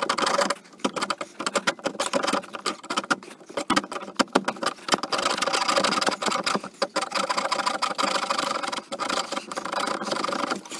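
Hand-held metal-cutting Sawzall blade, clamped in vise grips, rasping back and forth through a steel transmission cooler line. The fast strokes run together into a continuous scraping, sped up in a time lapse.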